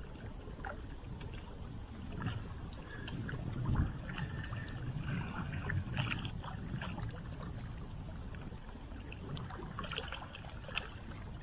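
Wind buffeting the microphone with a steady low rumble, while small waves lap and splash among shoreline rocks in a run of little clicks and splashes.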